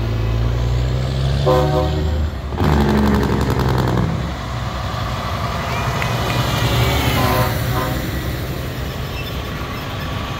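Diesel semi trucks rolling slowly past, the engines running with a rising pitch at first. A short horn toot comes about one and a half seconds in, followed by a brief rattling hiss, and another horn note sounds near the middle.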